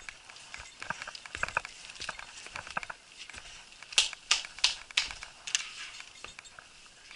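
Footsteps on rock, then a run of sharp clacks and knocks about four seconds in as a wooden screen door is opened and stepped through, followed by a few steps on the porch floor.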